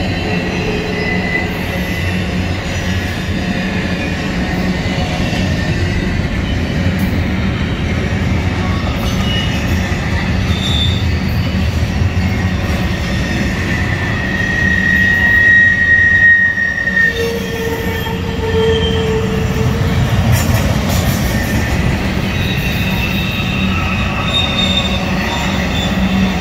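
Double-stack intermodal freight train's container well cars rolling past: a steady rumble of steel wheels on rail with thin, high wheel squeals that come and go, the loudest squeal near the middle.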